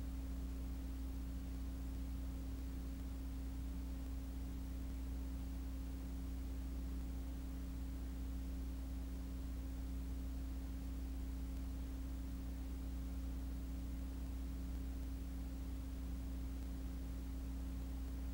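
Steady low electrical hum of a few fixed tones with faint hiss, unchanging throughout; no kart engine or other event is heard.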